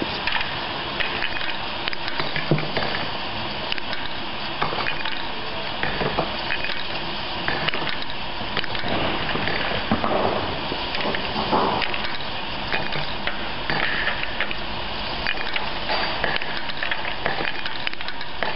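Belt conveyor feeding wine closures, running steadily with a dense clatter of many small clicks as the closures knock together and against the guide rail.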